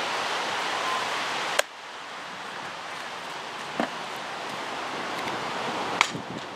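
Steady outdoor wind hiss that drops abruptly with a sharp click about a second and a half in. A fainter knock comes a couple of seconds later, and near the end a sharp crack of a bat hitting a softball.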